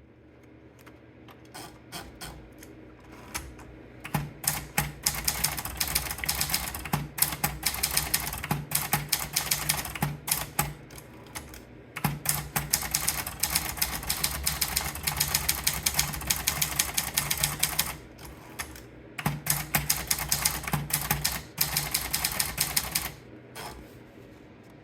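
Adler Tippa S portable manual typewriter being typed on quickly, rapid clacking keystrokes in three runs with short breaks between them.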